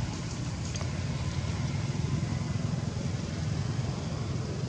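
Steady low rumbling background noise with no distinct event standing out.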